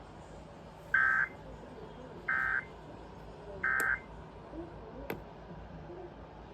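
Emergency Alert System end-of-message signal: three short, identical buzzy digital data bursts about 1.3 seconds apart, closing the required weekly test. A single sharp click follows about five seconds in, over faint background hiss.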